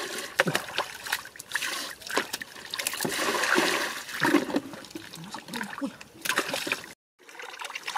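Muddy water splashing and pouring as it is bailed by bucket out of a waterlogged wooden boat, in repeated scoop-and-throw splashes with a longer pour a few seconds in.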